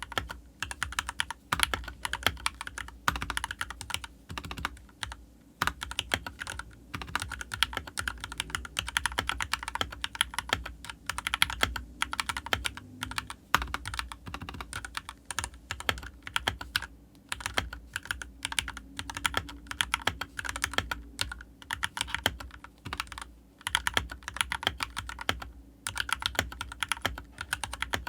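Royal Kludge RK68 mechanical keyboard with Gateron Milky Yellow linear switches being typed on: a fast, continuous stream of key clacks in runs of a few seconds, broken by brief pauses.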